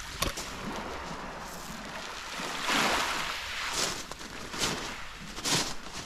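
Black Sea surf washing onto the beach, with a long surge about three seconds in followed by several shorter rushes.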